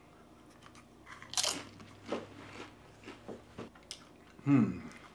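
A tortilla chip loaded with queso being bitten into and chewed: one sharp crunch about a second and a half in, then several softer crunches as it is chewed.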